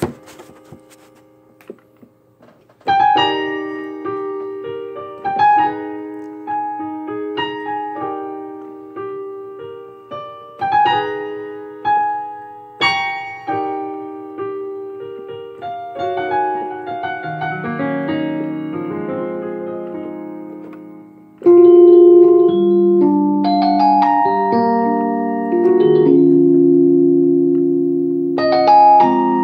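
Roland VR-09 keyboard played on a piano voice: chords struck one after another, each ringing out and fading, starting about three seconds in. Past the middle the notes run on and overlap, and about three-quarters through a louder passage of held chords begins suddenly.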